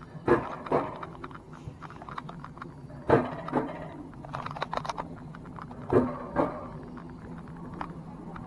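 Alpine coaster sled climbing slowly along its tubular steel track. Its wheels clack twice in quick succession about every three seconds, over a low steady hum.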